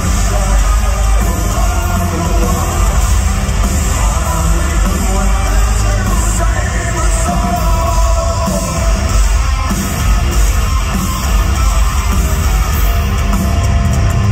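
Loud live hard rock band playing in a large hall, with electric guitars, bass and drums under sung vocals, heard from among the audience.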